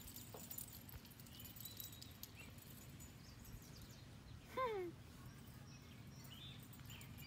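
Faint backyard ambience with small birds chirping now and then. About four and a half seconds in comes one short, louder cry that falls in pitch.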